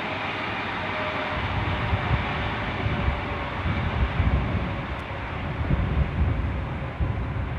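Noise from the Ghan passenger train and its diesel locomotives: a steady rush with a heavier, uneven low rumble that starts about a second and a half in.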